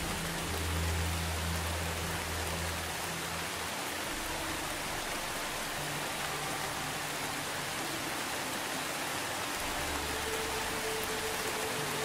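Steady rain falling on garden leaves and grass: an even hiss of many drops, with a faint low hum that comes and goes underneath.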